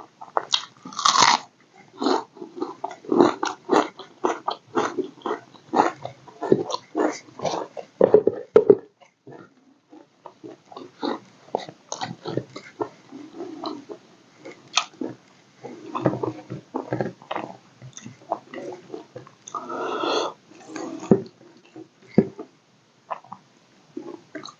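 Close-up mouth sounds of a person eating roti with egg curry and raw onion: irregular chewing and biting, with crisp crunches, going on with short gaps.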